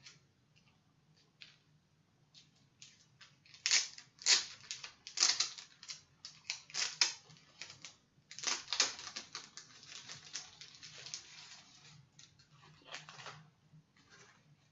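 Irregular clicks and rustles in clusters as a small charm accessory is handled and fiddled with.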